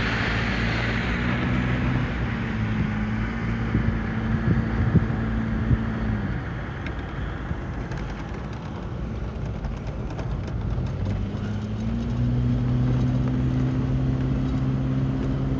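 Car engine hum and road noise inside an SUV's cabin while driving. The engine note drops away about six seconds in and climbs again about eleven seconds in, with a rush of wind at the start that fades within the first couple of seconds.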